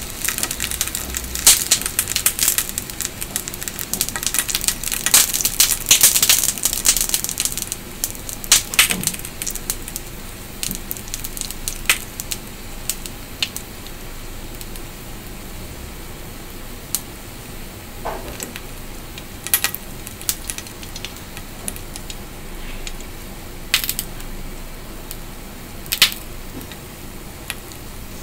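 Mochi cakes toasting in a dry pan on the stove: dense crackling and sizzling for the first several seconds, then a quieter steady hiss broken by scattered sharp pops and ticks.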